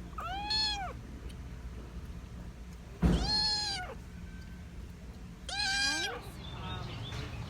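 A kitten meowing three times, a few seconds apart. Each meow lasts under a second, with its pitch rising and then falling.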